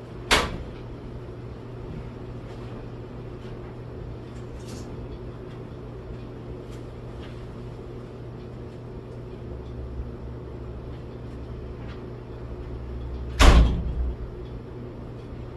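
Clothes dryer door banged open with a sharp clack just after the start, and shut with a heavier thump near the end, with faint handling noises between. A steady low hum runs underneath.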